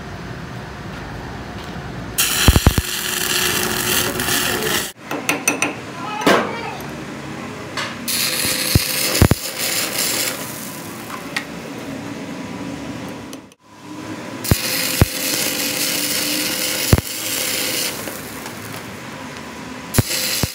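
Electric arc welding on a truck's front wheel spindle: the arc crackles and hisses in three long runs, starting about two seconds in and breaking off briefly twice, with sharp clicks along the way. It is laying weld metal onto the worn threaded end of the spindle to build it back up to size.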